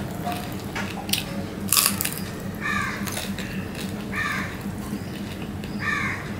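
Mouth sounds of eating fried koi fish and rice by hand: chewing and smacking, with a couple of sharp smacks in the first two seconds. A bird calls three times, about a second and a half apart.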